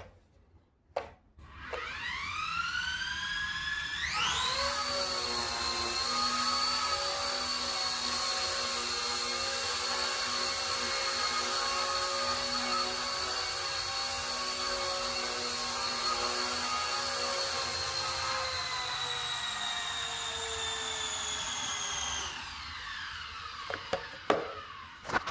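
Small electric RC helicopter (RC ERA Bell 222 Airwolf) with its motor and rotor whining. The whine rises in pitch for a few seconds as it spools up, holds a steady high pitch, then drops and dies away near the end. A couple of clicks come just before the spool-up.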